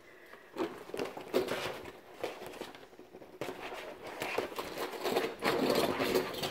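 Non-woven fabric sheets and corrugated plastic boards rustling and crinkling as they are handled and folded, with a few small knocks; the rustling gets busier and louder in the second half.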